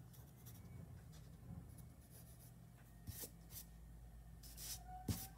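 Faint scratching of a pencil on drawing paper as short, loose strokes are sketched, a few louder strokes in the second half. A soft knock near the end.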